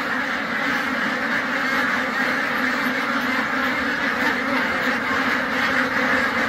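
A flock of thousands of white domestic ducks quacking all at once: a steady, dense din of overlapping quacks with no single call standing out.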